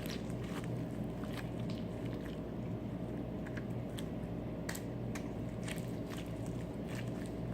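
Slime being squished and kneaded by hand, with irregular sticky clicks and pops, as soap is worked in to soften it; a steady low hum runs underneath.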